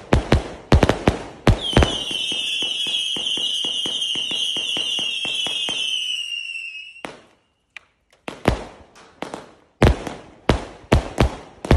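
A 0.8-inch, 388-shot fireworks cake firing in rapid sequence: quick bangs of shots, then a high whistling shriek that slides slowly down in pitch for several seconds over a fast run of pops. It cuts off into a pause of about a second, and rapid bangs start again.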